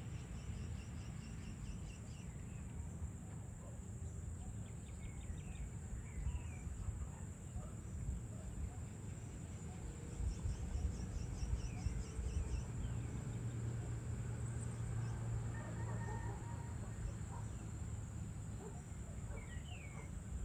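Evening outdoor ambience: a steady high-pitched insect drone, with short chirping bird calls now and then over a low rumble. A low steady hum joins about two-thirds of the way in for several seconds.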